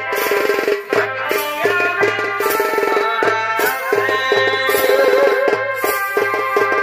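Purulia Chhau dance music: a dhol barrel drum beaten in a fast, steady rhythm, with a held melody line over it that wavers in pitch and a repeating low drum tone beneath.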